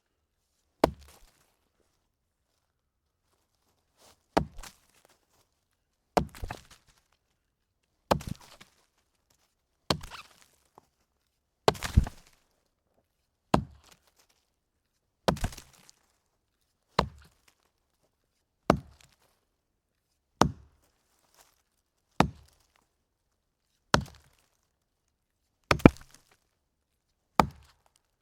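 Wood being chopped: single chopping blows into a log, about fifteen sharp strikes, one roughly every two seconds, with a pause after the first.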